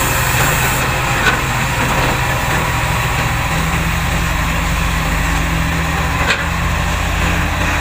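Diesel engine of heavy earthmoving machinery running steadily, with two short knocks, one about a second in and one near the end.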